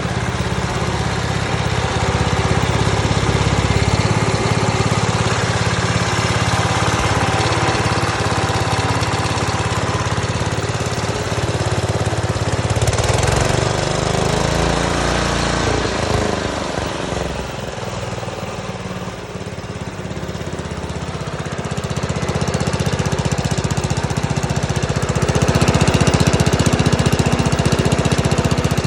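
Small gasoline engine of a Clipper C-188 14-inch walk-behind concrete saw running steadily; it drops off somewhat about two-thirds of the way through, then picks back up toward the end.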